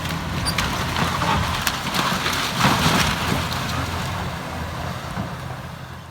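A heavy machine's engine running steadily under crackling, crunching debris, which builds to its loudest about three seconds in and then fades out near the end: the sound of a house being demolished.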